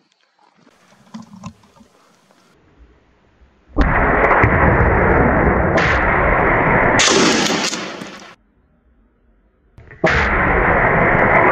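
Two rifle shots, about four and ten seconds in, each starting suddenly and followed by a loud, steady wash of noise lasting several seconds; the first cuts off abruptly.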